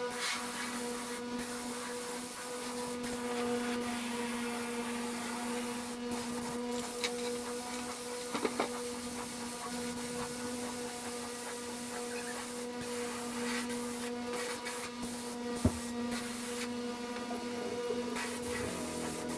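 Air spray gun hissing as epoxy primer is sprayed, in passes broken by several brief pauses when the trigger is let go, over a steady low hum.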